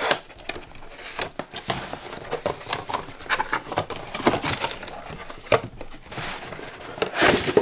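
A cardboard box being opened and handled by hand: flaps scraping and rustling, with scattered sharp clicks and taps and a denser rustle near the end.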